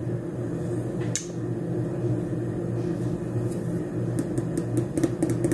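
Steady low hum of a running appliance. From about four seconds in come quick light clicks and taps as a sticker sheet and paper are handled.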